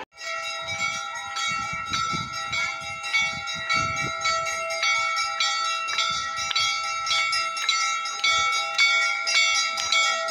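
Brass temple bells being rung for the aarti, struck rapidly and without a break so that their tones ring on over one another.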